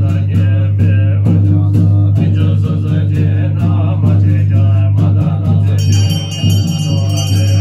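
Buddhist mantra chanting with musical accompaniment over a steady low drone. High ringing tones come in about six seconds in.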